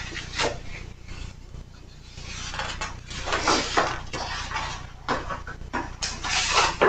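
Pages of a large picture book rustling and flapping as they are leafed through by hand, in several irregular bursts of paper noise.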